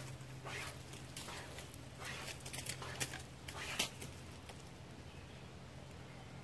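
Survival-kit wire saw rasping through a fallen tree limb in short, uneven strokes as its teeth bite into the wood, with the strokes fainter after about four seconds.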